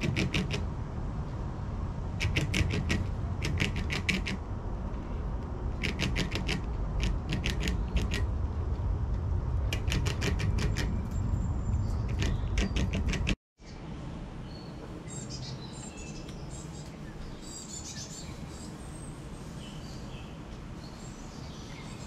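Squirrel gnawing kernels off a dried corn cob: quick bouts of crisp clicks every second or two over a low rumble. After a sudden cut about two-thirds in, a quieter background follows with scattered bird chirps.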